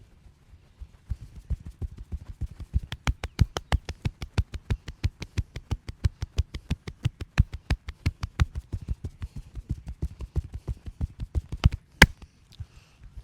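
Percussive massage strokes: hands striking the body in a fast, even rhythm of about five strikes a second, each with a dull thud, starting about a second in. One louder, sharper strike comes near the end.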